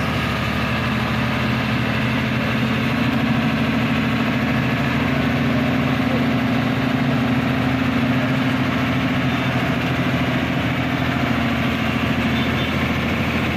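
Hino truck's diesel engine running at a steady, unchanging speed.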